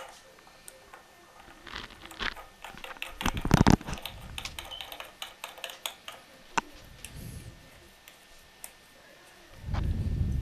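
Plastic faucet mounting nut being spun by hand up a faucet's threaded shank under a porcelain sink: a run of small plastic clicks and rattles, densest about three to four seconds in. A dull low thump comes near the end.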